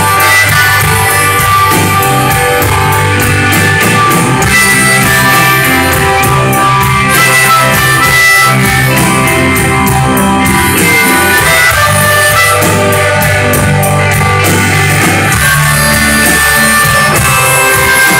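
Live rock band playing loud: electric guitars, bass and drum kit with cymbals ticking steadily, heard from within the audience.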